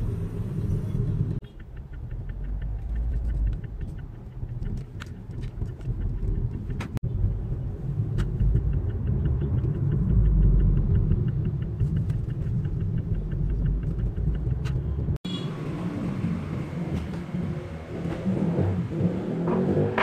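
Car cabin noise while driving in traffic: a steady low rumble of road and engine noise heard from inside the moving car.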